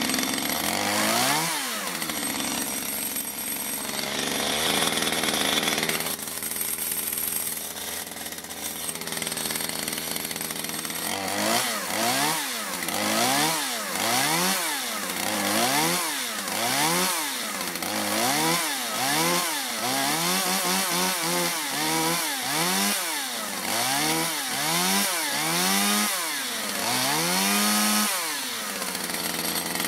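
STIHL MS211 two-stroke chainsaw engine running after its crankshaft seals were replaced. It runs steadily for the first ten seconds or so, then is revved up and let back down over and over, about once a second.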